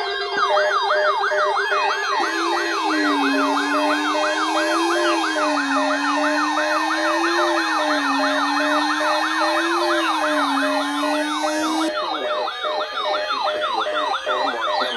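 Several electronic emergency sirens sounding together: a fast yelp sweeping up and down about four times a second over a slow rising-and-falling wail and higher warbling tones. The slow wail stops about twelve seconds in while the yelp carries on.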